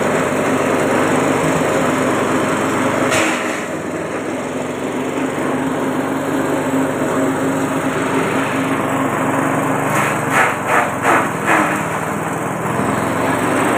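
Small petrol engine running steadily, driving a belt-driven chaff cutter whose blades chop leafy green forage. A run of four short, louder bursts comes about ten seconds in, as greens are fed through the cutter.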